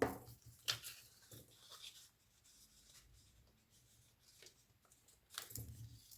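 Paper being scored and creased by hand on a scoring board: a few short scraping, rubbing strokes, the loudest right at the start.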